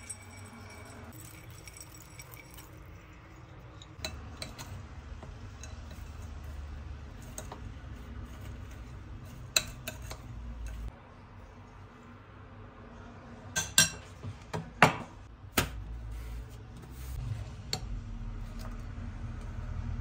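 Metal spoon clinking and scraping against a glass bowl while stirring a chunky nut filling, with a quick run of sharp clinks a little past the middle.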